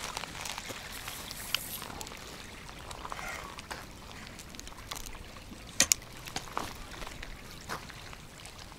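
Small waves lapping on a shingle shore under steady wind noise, with two sharp clicks close together about six seconds in while a feeder rod and spinning reel are handled.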